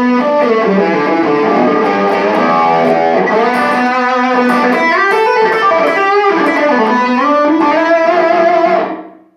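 Electric guitar played through a Boss ME-20 multi-effects pedal's overdrive, a melodic phrase with bent notes, fading out near the end.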